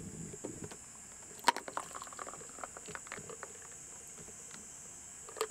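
Scattered light clicks and knocks, the sharpest about a second and a half in and a small cluster near the end, over a steady high-pitched hiss.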